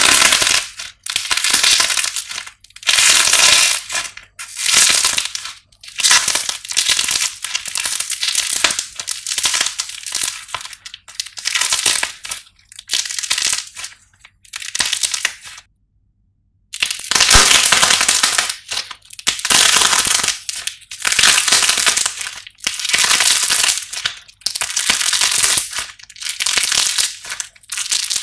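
Hands breaking and squeezing dried, painted clay shaped like twisted bread: crunchy crackling in repeated bursts of a second or so each, with a second of silence a little past halfway.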